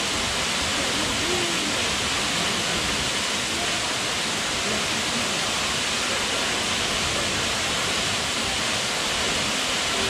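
Waterfall's steady rush of falling water plunging into its pool: a continuous, even hiss-like roar with no change in level.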